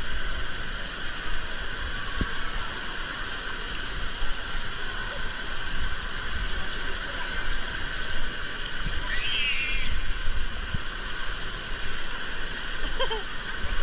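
Indoor water park ambience: a steady wash of spraying fountains and splashing water echoing in a large hall, with distant voices in the mix. A single high squeal about nine seconds in.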